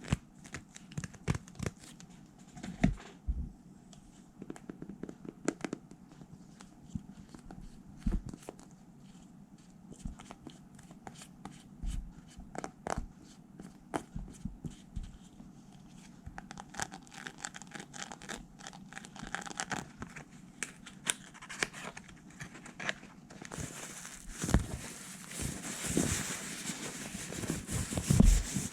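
Close-miked ASMR tapping and scratching: irregular light taps and clicks, some sharper, with a few seconds of steady brushing hiss near the end.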